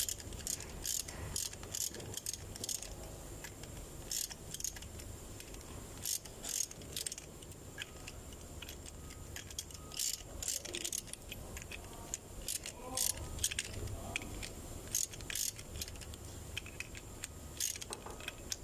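Ratchet wrench on the crankshaft bolt of a GM 5.3-litre V8, clicking in short irregular runs as the crankshaft is turned to bring the timing chain sprockets into line.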